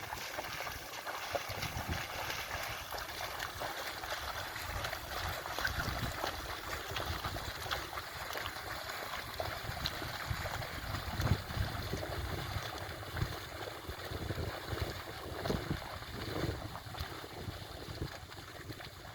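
Muddy water sloshing and splashing as oxen draw a plough through a flooded field, with wind rumbling on the microphone.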